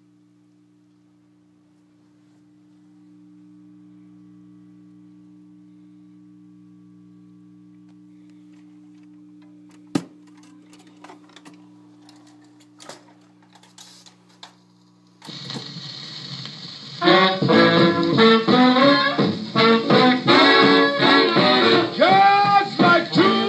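1953 RCA 3-HES-5 45 rpm record player: a low steady hum from its amplifier, a sharp click about ten seconds in and a few softer clicks as the changer sets the record and tone arm, then surface hiss and a record playing music with horns through the player's own speaker.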